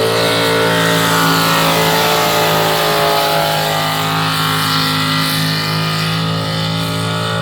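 Pulling tractor's engine running flat out under load during a pull, holding a steady pitch, easing slightly near the end.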